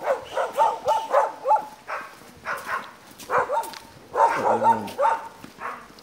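Hunting dogs barking and yelping in quick runs of short, high calls, twice, with a lower call that drops in pitch between them.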